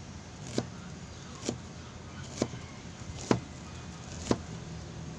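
Kitchen knife chopping an onion on a cutting board: five separate sharp knocks, about one a second.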